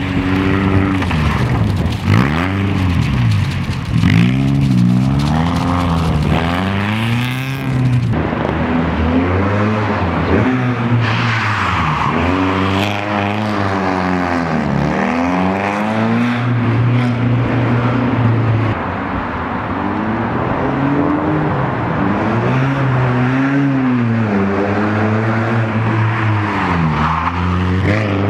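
BMW E30 318is rally car's 1.8-litre four-cylinder engine revving hard and falling away again and again, its note climbing and dropping through the gears as the car is driven flat out round tight corners.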